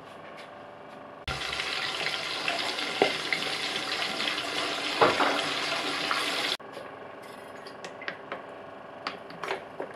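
Steady hiss from a gas cooker burner with an enamel pot over the flame, starting and stopping abruptly. After it, quieter small ticks as sunflower oil is poured from a plastic bottle into the pot.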